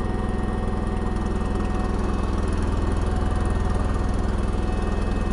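John Deere 140 H3 lawn tractor's single-cylinder Kohler engine running steadily with its throttle raised, an even, unchanging engine note.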